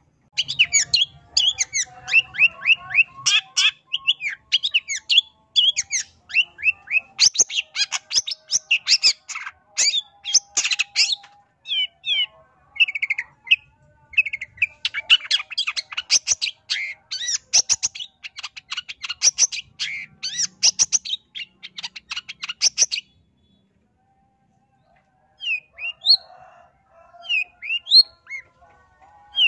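Long-tailed shrike singing a rapid, chattering song of short, sharp, ever-changing notes. The song breaks off about three-quarters of the way through and resumes as scattered single calls.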